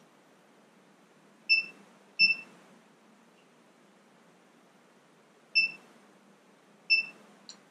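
Four sharp metallic clicks, each with a brief ringing ping: two about a second and a half to two seconds in, two more later, and a fainter tick near the end. The Mercury Thunderbolt 500 outboard's throttle and spark-advance linkage is being worked by hand against its stop.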